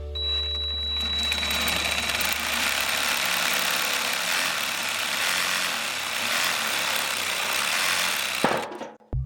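Stanley 18-volt lithium battery reciprocating saw running and cutting wood, with a high whine for the first couple of seconds. It stops abruptly about eight and a half seconds in.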